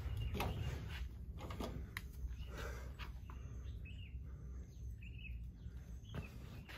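Footsteps on a tiled stone terrace over a low steady rumble of outdoor ambience, with a few short bird chirps about four and five seconds in.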